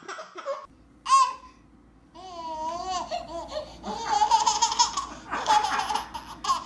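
A baby squealing and babbling in high, wavering tones, then laughing in a long run of giggles through the second half.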